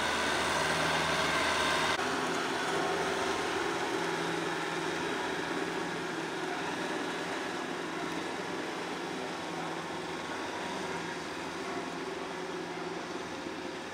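Kubota M6040SU tractor's diesel engine running steadily under load while pulling a rotary tiller through a flooded rice paddy. The sound gets thinner and loses its low end about two seconds in.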